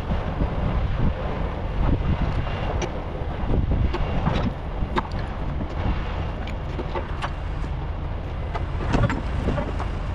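Heavy diesel truck engine running steadily, with scattered sharp metallic clinks and knocks.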